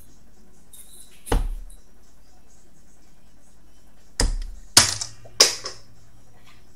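Steel-tip darts thudding into a Winmau Blade 5 bristle dartboard: one sharp hit about a second in, then three more in quick succession near the end.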